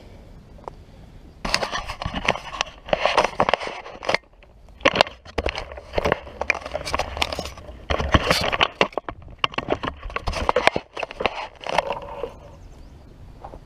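Close, loud bursts of scraping, rustling and crackling with sharp clicks, starting about a second and a half in and stopping near the end. This is handling noise: the action camera is being picked up, moved and set down while things are handled right beside it.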